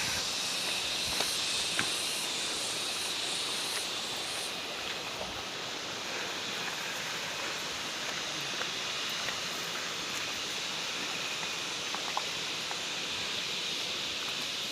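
Insects droning steadily, with a high pulsing chirp that stops about four and a half seconds in, and a few faint clicks.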